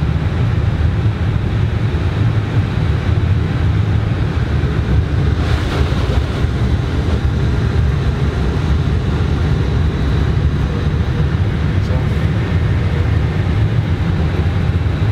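Steady low rumble inside an Airbus A320 cockpit on the ground after landing, from the engines at idle and the airliner rolling along the runway or taxiway.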